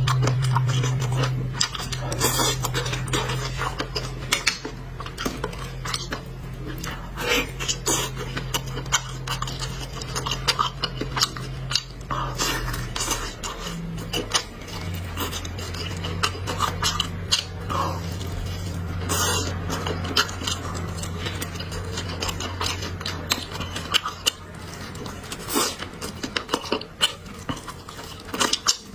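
Eating utensils clicking and scraping against bowls and plates at a meal, in many short, irregular knocks. A steady low hum runs underneath and changes pitch about halfway through.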